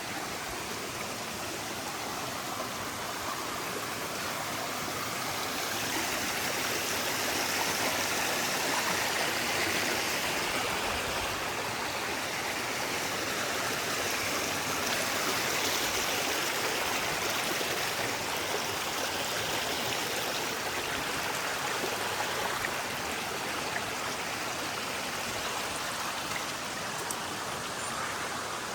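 Stream water rushing and splashing over the rocks of a tiered jungle waterfall, a steady noise that swells a little in the middle.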